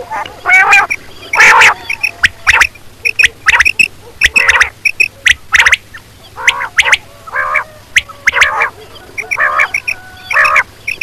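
Quail calling over and over, short repeated notes with many overtones, one or two a second, used as a call to lure quail into nets.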